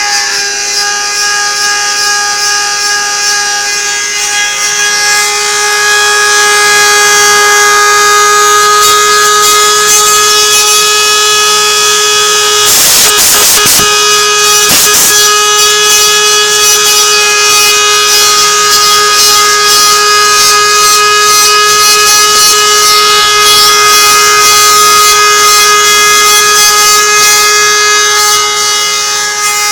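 CNC router spindle running steadily while milling Teflon (PTFE): a constant whine of several held tones over a high cutting hiss, with a few brief sharp rattles about halfway through.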